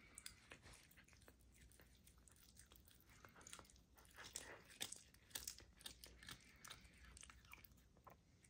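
A serval chewing and crunching a raw chicken wing taken from a hand: faint, irregular crackling bites, busiest about four to six seconds in.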